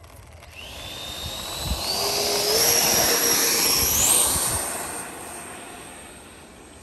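Twin 64 mm electric ducted fans of a radio-controlled MiG-25 Foxbat model jet throttling up for the takeoff roll: a high whine that rises in steps from about half a second in to about four seconds, then fades as the model rolls away down the runway.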